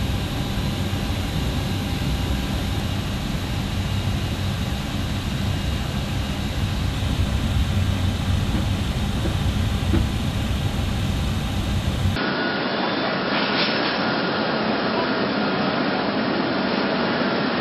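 Jet aircraft engines running steadily, a dense rumble with a faint steady whine on top. About twelve seconds in the sound changes abruptly to a thinner, hissier engine noise with less rumble, as from a different recording.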